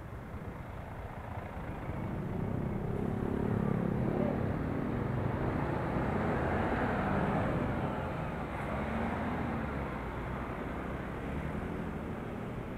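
Motorcycle running through city traffic, its engine and road and wind noise swelling as it accelerates over the middle few seconds, then easing off.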